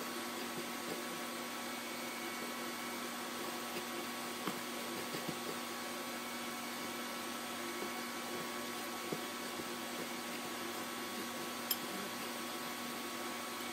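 Steady whirring hum of a countertop air fryer's fan running, with a faint constant whine in it. A few faint light clicks from hands working shrimp in a glass dish of breadcrumbs.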